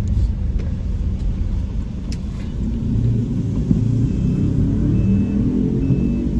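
Steady low rumble of a car's engine and road noise heard inside the cabin while driving. From about four seconds in, a faint high beep repeats a little faster than once a second.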